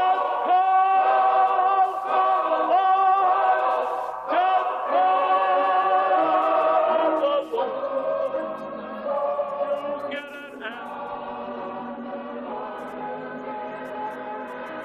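Church choir singing a gospel song in long held notes. About halfway through, the singing drops to a quieter, steady sustained chord.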